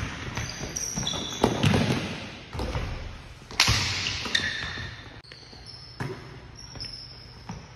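A basketball bouncing on a hardwood gym floor, with a few sharp thuds echoing in the hall (the loudest about one and a half seconds and three and a half seconds in), and short high sneaker squeaks on the court.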